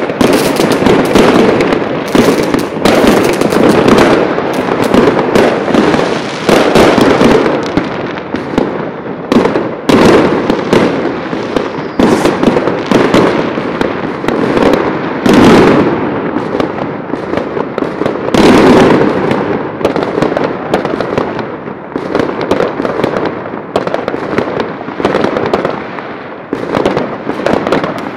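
Many fireworks going off at once: a dense, unbroken run of bangs and crackles from bursting aerial shells, easing slightly toward the end.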